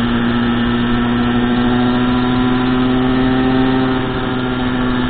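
Motorcycle engine running at a steady cruising speed: a constant drone whose pitch barely changes, easing off slightly about four seconds in.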